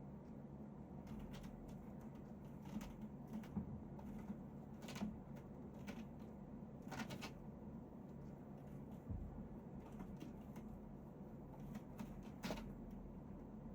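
Faint, irregular light clicks and scuffs, a dozen or so scattered over a low steady hum.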